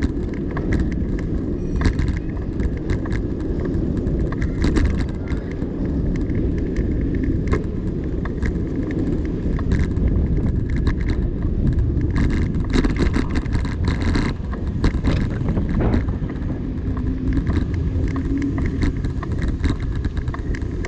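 Steady low rumble of wind and road noise from riding along a city street, with frequent small rattles and clicks from the moving vehicle and camera mount, thickest just past the middle.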